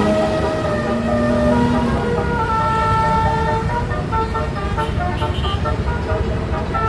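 Bus 'telolet' musical air horn playing a tune of held notes that change pitch in steps, some overlapping, over the low rumble of engine and road noise.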